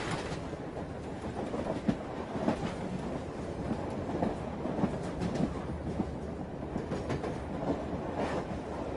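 Passenger train running, heard from inside the carriage: a steady rumble with the wheels clattering over the rail joints.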